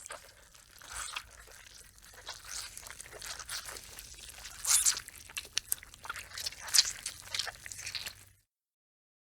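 Gore sound effect: wet crunching, tearing and crackling as of flesh and bone being ripped apart, with a dense run of irregular crackles and louder crunches about five and seven seconds in. It cuts off suddenly a second before the end.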